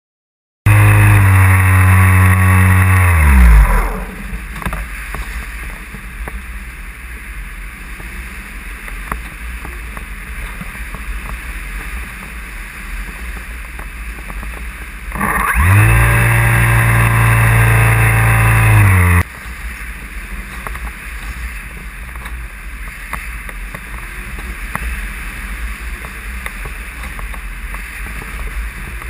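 Electric motor and propeller of a radio-controlled glider, heard from a camera on board: it runs at full power for about three seconds, then winds down with falling pitch and the glider coasts with a steady rush of air. About fifteen seconds in the motor spins up again, runs for about four seconds and cuts off, leaving the air rush.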